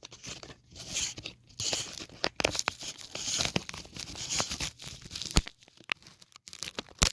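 Close handling noise: irregular rustling and scraping with several sharp clicks, the loudest a couple of hard clicks about five and a half seconds in and just before the end, as the camera on its broken stand is reset.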